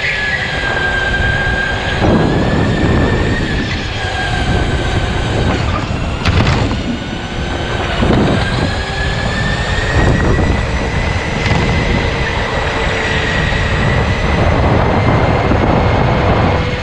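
Electric go-kart motor whining over tyre and track noise. Its pitch drops in the first few seconds and climbs back later as the kart slows and speeds up, with a few short knocks along the way.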